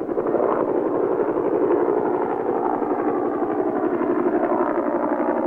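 Helicopter in flight overhead, its rotor blades chopping in a rapid, steady beat.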